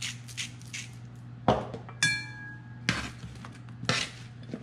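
A glass salt grinder twisted in a few quick crunching strokes, then several sharp knocks and a ringing clink as the grinder is set down and a metal spatula is handled against the sheet pan.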